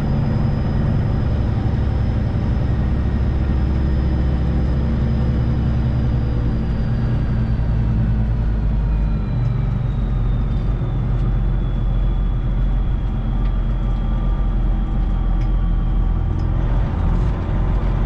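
Freightliner Classic XL semi truck's Detroit Diesel 12.7 engine running steadily under way, heard from inside the cab. A faint high whine slides lower in pitch about halfway through.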